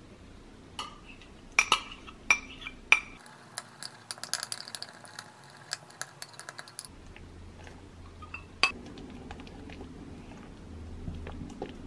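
Metal utensil clinking and tapping against glass mixing bowls while batter is mixed by hand: a few sharp clinks at the start, then a few seconds of quick light taps as melted butter and earl grey milk are whisked in a small glass bowl, and one more clink later.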